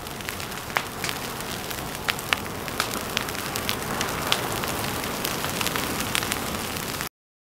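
Forest vegetation burning where a lava flow is moving in: a steady hiss of fire broken by many sharp cracks and pops. The sound cuts off suddenly near the end.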